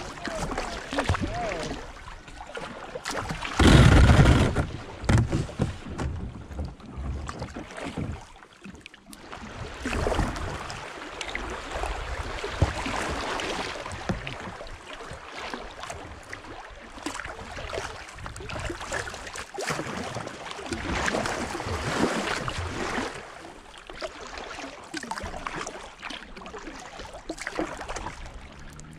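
Water splashing and rushing around a kayak's hull as it runs a shallow riffle, swelling and fading unevenly. A loud low rumble about four seconds in.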